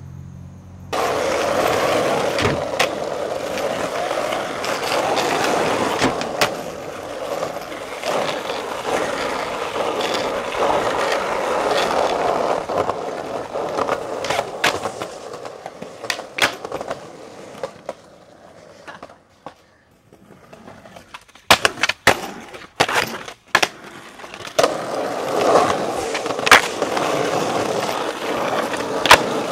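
Skateboard wheels rolling hard over concrete and asphalt, with occasional sharp clicks. About two-thirds of the way in the rolling drops away and several loud clacks of the board hitting the ground come in quick succession, then the rolling starts again.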